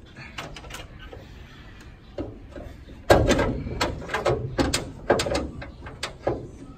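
Car hood being handled and lifted: a series of metal clunks and knocks, the loudest about three seconds in.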